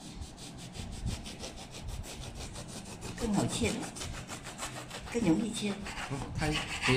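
Serrated bread knife sawing through a crusty loaf of homemade bread in rapid, even back-and-forth strokes, the blade rasping against the crust and crumb.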